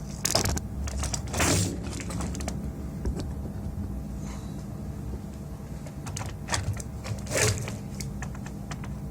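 Scattered clicks and knocks of things being handled, a few louder, over a steady low hum.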